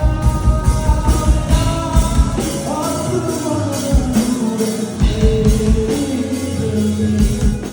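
Live rock band playing with a singer holding long, wavering notes over drum kit and guitar; the music stops abruptly at the end.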